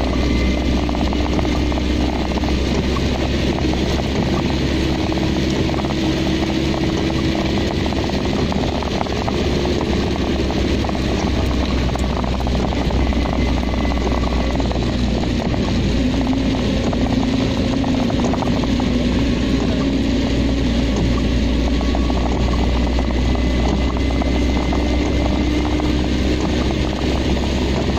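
Car driving along a wet road in rain: a steady engine drone whose pitch drifts slightly, under continuous tyre and rain noise.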